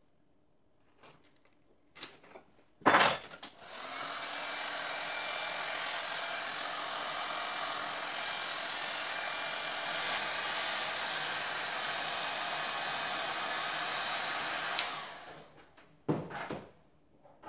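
Electric heat gun switched on about three seconds in, blowing steadily with a thin high whine, aimed at a puller fitted on the top of a homemade radial engine. It is switched off near the end and winds down. A few light metal clicks come before it starts.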